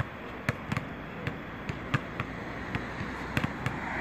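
Two basketballs being dribbled low and fast, with irregular, overlapping bounces at about four a second.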